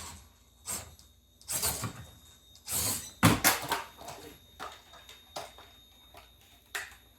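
Irregular knocks and scrapes of modular crawler-course pieces being handled and set down. The loudest is a sharp knock about three seconds in, and the sounds thin out toward the end.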